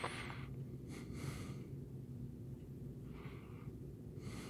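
A person breathing close to the microphone: several short breaths, about one every second or so, over a faint low steady hum.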